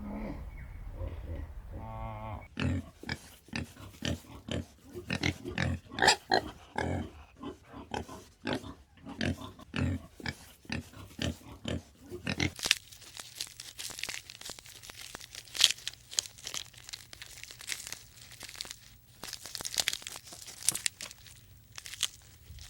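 Pigs grunting and snuffling in quick, irregular grunts. About halfway through this gives way to a crisp crackling, crunching sound over a low steady hum.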